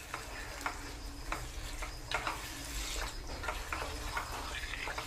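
Wooden spatula stirring raw chicken pieces through masala in a nonstick kadai, scraping and knocking against the pan in irregular strokes, with the masala sizzling underneath.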